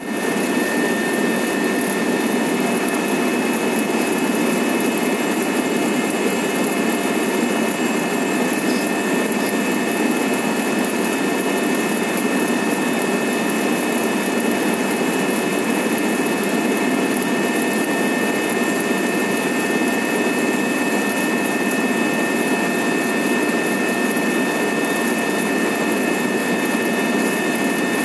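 Helicopter cabin noise in level flight: steady turbine-engine and rotor noise with a constant high whine running through it, heard from inside the cabin.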